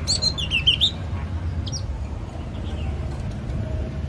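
Yellow-cheeked tit calling: a quick run of high, sharp chattering notes in the first second, then one short note a little later, over a low steady rumble.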